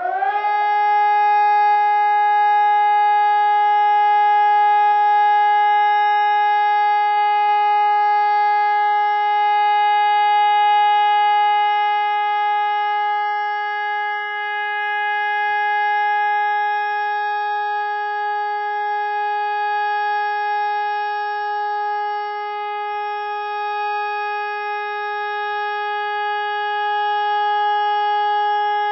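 SES electronic siren (Sonnenburg) holding one steady continuous tone, the German 'Entwarnung' all-clear signal. The loudness swells and fades slightly.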